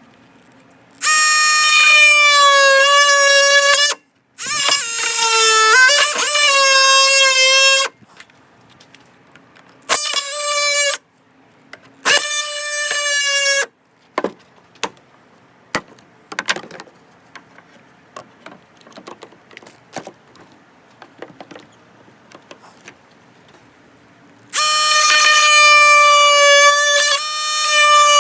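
Power drill motor running in five bursts of a few seconds each, a high whine that sags and climbs again with the load as it bores through PVC pipe. Scattered clicks and knocks come between the bursts.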